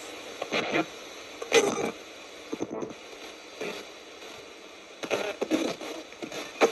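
Spirit box (ghost box) radio sweeping rapidly through stations: a steady static hiss broken by short, choppy snippets of broadcast sound, coming thicker near the end. The user listens to these fragments for spirit replies to her questions.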